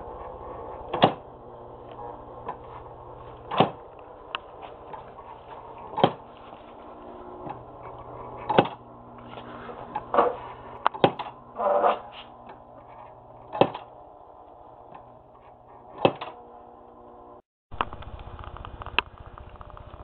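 Wooden model knock-and-drop sawmill running, with a steady mechanical hum and a sharp wooden knock about every two and a half seconds from its working parts. A few extra clicks come in the middle. The sound cuts out briefly near the end.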